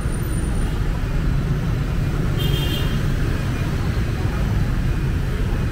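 City street traffic noise: a steady low rumble of passing vehicles. About two and a half seconds in, a short high-pitched beep cuts in briefly.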